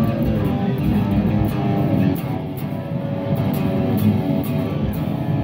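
Telecaster electric guitar played through an amp with a heavy metal tone, riffs with many quick picking strokes over ringing notes, easing off for a moment about two seconds in.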